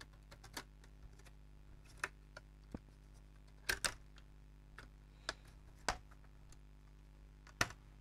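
Scattered light clicks and taps of plastic and metal as a laptop motherboard is pressed and fitted into its chassis, about eight in all, with a close pair about four seconds in. A sharper knock comes near the end as the laptop is turned over and set down. A faint steady low hum runs underneath.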